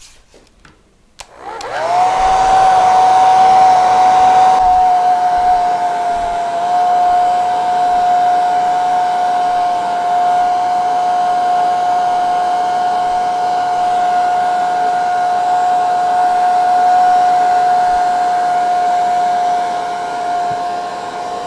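An old, well-worn Revlon handheld hair dryer switched on about a second in. Its motor whine rises quickly to a steady high pitch over the rush of air, runs steadily, and cuts off near the end.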